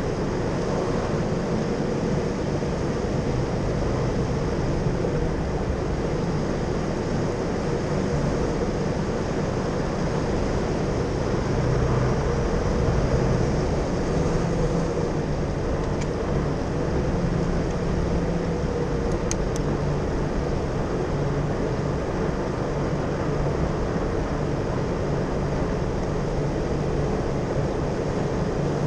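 Jeep driving at a steady pace over a sandy dirt track: the engine runs evenly under its tyre and road noise, with no change in speed.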